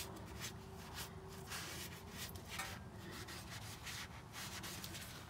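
Paper towel in a gloved hand wiping around a freshly fitted oil filter under the engine: a run of irregular soft rubbing strokes, cleaning off oil so that any leak will show.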